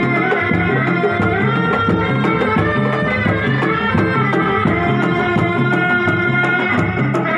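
Sundanese reak ensemble playing: barrel-shaped hand drums beaten in a steady repeating rhythm under a high, held melody line.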